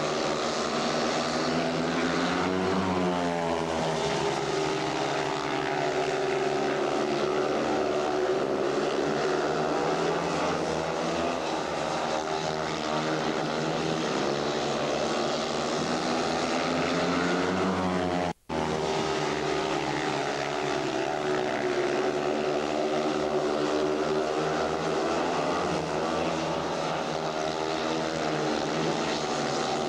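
Two 500cc single-cylinder speedway motorcycles racing, their engines running hard with a pitch that rises and falls as the riders throttle on and off through the bends. The sound cuts out for an instant a little past halfway.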